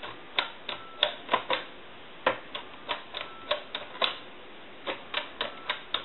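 Touch-tone keypad buttons on a Western Electric 2500 desk telephone being pressed one after another: a run of about twenty sharp plastic clicks at an uneven pace.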